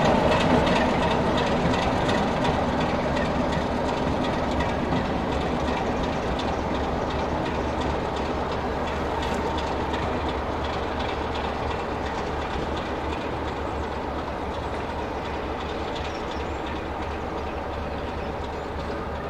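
Class 33 diesel locomotive and its coach running along the track and moving away, the sound of engine and wheels on rail fading steadily.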